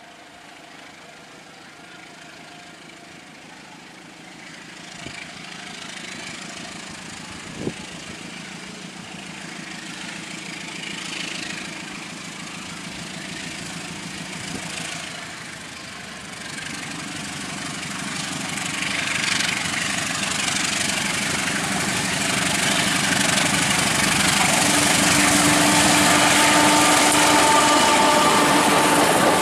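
Diesel-electric locomotive hauling a passenger train, its engine note growing steadily louder as it approaches and passes close by near the end, with rising wheel and rail noise.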